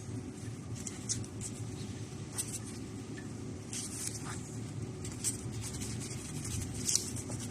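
A steady low machine hum, most likely from the ultrasonic welding equipment, with scattered light rustles and clicks of material being handled.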